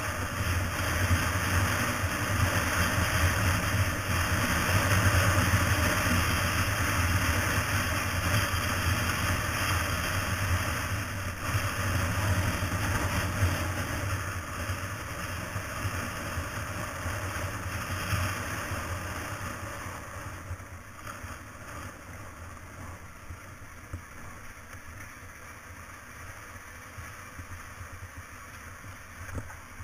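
Motorcycle engine running steadily at low road speed, mixed with road and wind noise on the bike-mounted camera's microphone; the sound drops noticeably quieter about two-thirds of the way through.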